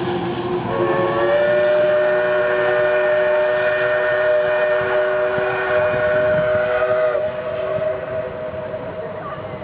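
Steam locomotive whistle blowing one long blast of several tones together. It starts about a second in, rising slightly in pitch as it opens, and cuts off about seven seconds in, over the steady running noise of the train.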